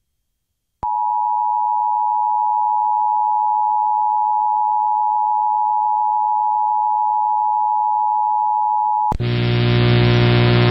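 Emergency Alert System attention signal: a steady two-tone alert that starts abruptly and holds for about eight seconds. It cuts off just after nine seconds in, when loud music comes in.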